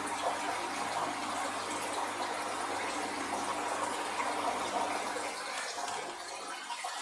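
Airlift in a homemade acrylic fish-egg incubator bubbling and splashing steadily as air lifts the water and circulates it, aerating it, with a faint low hum underneath.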